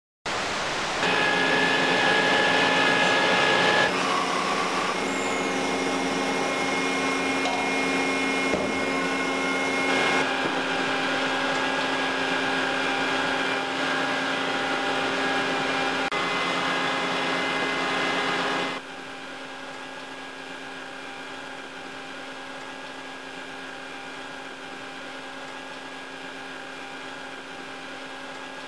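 Steady noise of underground mining machinery, with a whine made of several steady tones. Well past halfway through, it drops suddenly to a quieter steady hum.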